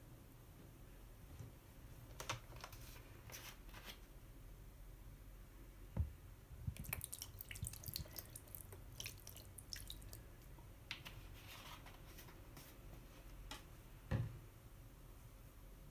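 Thick green dish soap poured onto a long egg-crate foam sponge, with faint wet crackling as it lands, densest in the middle. There is a soft knock about six seconds in and another near the end.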